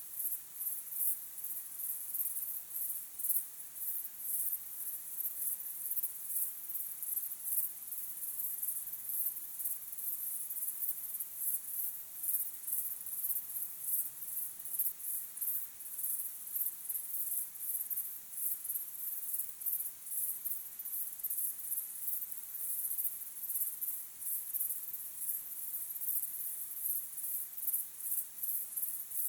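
Crickets chirping in a dense chorus: a high-pitched, rapidly pulsing trill that goes on without a break.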